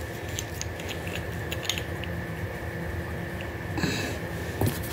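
Small clicks and rustles of a nail polish bottle being handled, with a louder rustle about four seconds in.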